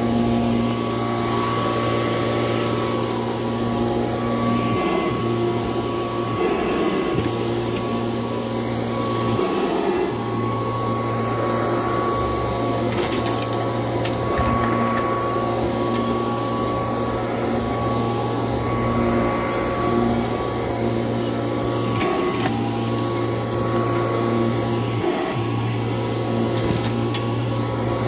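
1986 Kirby Heritage II upright vacuum cleaner running steadily as it is pushed back and forth over a rug, with lots of crunch in its sound.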